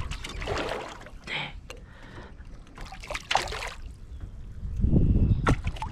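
Water splashing and sloshing as a hooked fish thrashes at the surface beside the boat and is grabbed by hand, with a heavy low thump about five seconds in.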